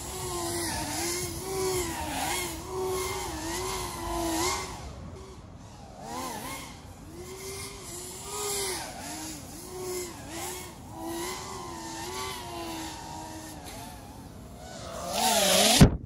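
FPV racing quadcopter's brushless motors whining in flight, the pitch swooping up and down with the throttle, flown on a 60% throttle limit. Near the end the whine swells loudly, then cuts off suddenly.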